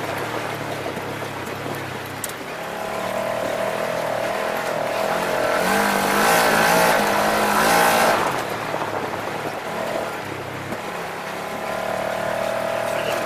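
Off-road side-by-side's engine running as it drives, its note rising in pitch and growing louder from about three seconds in to a peak around eight seconds, then dropping back and climbing again near the end.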